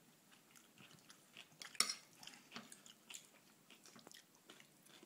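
A young child biting and chewing raw cucumber: faint crunchy chewing with small clicks, and one sharper crunch about two seconds in.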